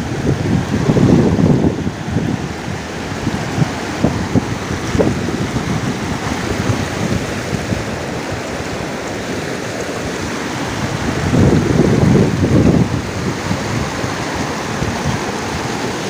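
Rushing water of a shallow, rocky mountain stream, with wind buffeting the microphone in gusts about a second in and again around twelve seconds in.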